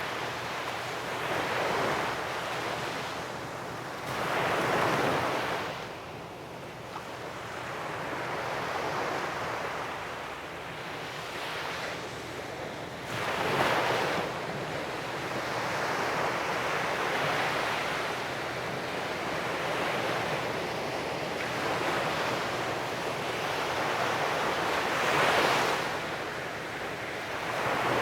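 Sea waves breaking and washing up a sandy beach, a steady surf hiss that swells as each wave breaks, the strongest breakers about a third of the way in and again near the end. Some wind noise on the microphone.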